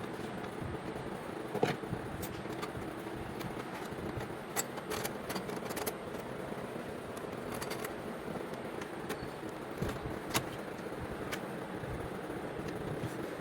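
Steady background din with scattered sharp clicks and small clatters, the loudest about a second and a half in and again near ten seconds.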